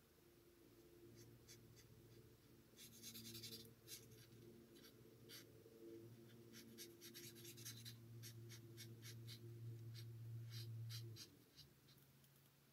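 Faint scratching of an alcohol blending marker's tip on cardstock, in many short colouring strokes. A low steady hum runs underneath and stops near the end.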